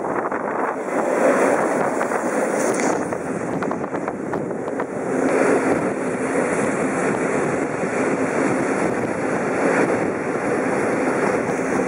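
Running noise of a moving train heard at an open window: a steady wheel-and-rail rumble with wind on the microphone and a few clicks in the first seconds, while an ET22 electric locomotive passes close by on the other track.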